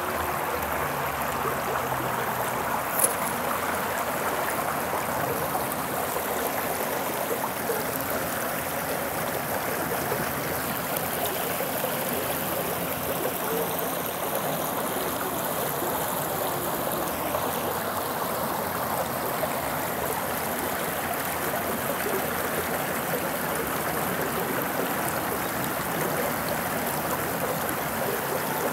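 Stream water running steadily in an even rushing murmur. There is a single brief click about three seconds in.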